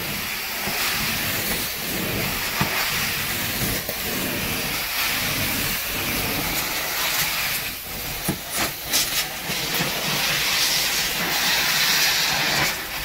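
Carpet-cleaning extraction wand pulling air as it is dragged over Berber carpet in vacuum-only dry strokes: a steady loud suction hiss. The dry strokes draw out leftover moisture so the carpet won't wick back spots. A few brief knocks and dips come about eight to nine seconds in.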